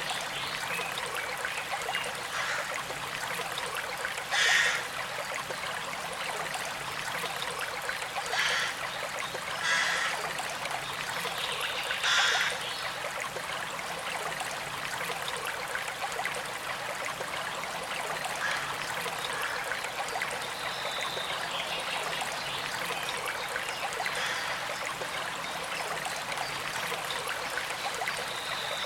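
A stream running steadily over stones, a continuous trickling with a few brief louder splashes in the first half.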